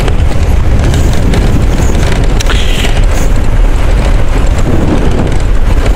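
Motorcycle riding noise: wind buffeting the microphone over the running engine, a loud, steady rumble.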